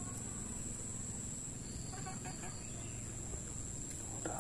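Outdoor ambience: a steady high-pitched insect trill over a low trickle of stream water, with a few faint animal calls about halfway through.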